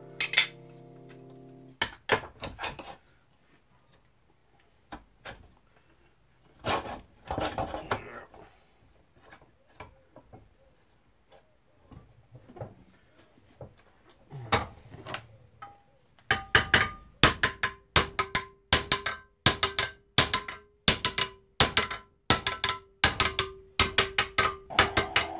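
Hammer work on a steel sheet-metal plate: scattered knocks and rubbing, then from about two-thirds of the way in a steady run of hammer blows, roughly two a second, each with a metallic ring, as the plate is beaten into shape.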